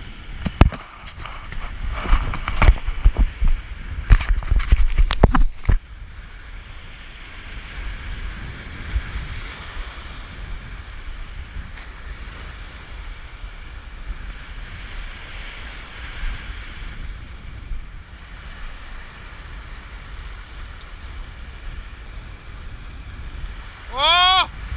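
Sea surf washing and wind buffeting the microphone. A run of loud knocks and thumps fills the first six seconds, then the surf settles to a steady wash. Near the end comes one brief pitched call that rises then falls.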